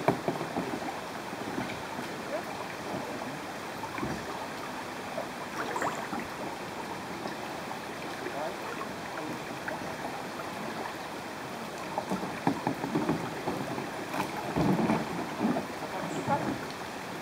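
Fast river current rippling and gurgling steadily, with scattered knocks and splashes that grow busier near the end.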